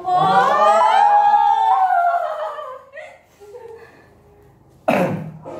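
A long, loud wailing cry that rises and then falls away over nearly three seconds, followed by a sudden loud burst near the end.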